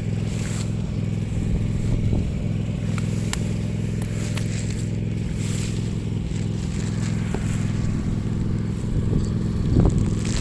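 Two-stroke brush cutter engine running steadily while cutting grass, with scattered sharp ticks of debris striking, and a brief surge near the end.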